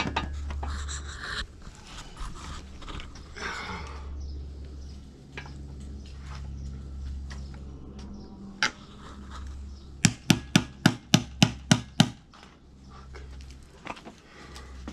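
Hand ratchet wrench working the oil pan bolts off an engine, with scattered clicks and scraping. About two-thirds of the way through comes a quick run of about ten loud ratchet clicks, roughly five a second, over a steady low hum.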